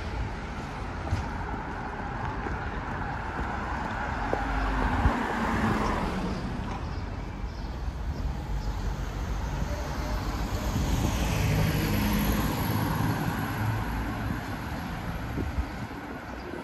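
City road traffic with vehicles passing by. The sound swells as one passes about six seconds in, and again as another passes around twelve seconds in.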